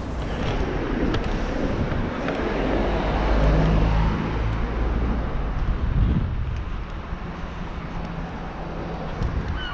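Street ambience of road traffic passing, a low engine rumble that swells and fades, with wind buffeting the microphone.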